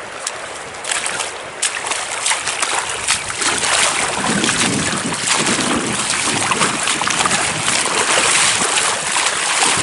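Shallow river water splashing and rushing around someone wading through it, a steady wash of noise that grows louder about a second in.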